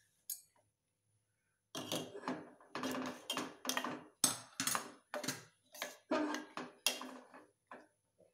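A metal spoon scraping and knocking against the inside of a stainless-steel pot in quick strokes, about two a second, starting about two seconds in: stirring tamarind pulp and jaggery so the jaggery melts.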